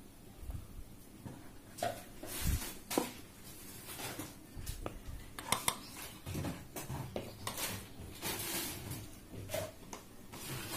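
Scattered light clinks and knocks of kitchenware being handled, a second or so apart.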